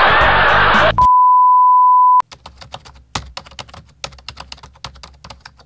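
A loud, noisy sound effect cuts off about a second in. A steady high beep follows, lasting just over a second, then a run of keyboard-typing clicks: a typing sound effect as the intro title types onto the screen.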